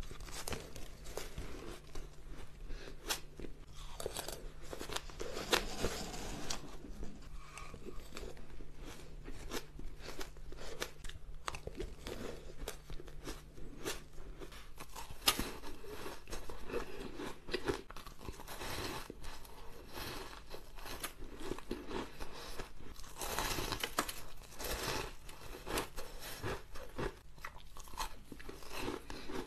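Close-miked crunching and chewing of shaved ice, eaten by the spoonful: a dense run of small crisp crunches, busier about six seconds in and again around twenty-four seconds.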